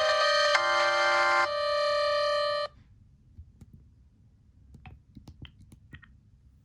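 Motorola RAZR V8 polyphonic ringtone playing through the phone's speaker: a synthesized melody of a few notes ending on a held note that cuts off suddenly about two and a half seconds in. A few faint clicks follow.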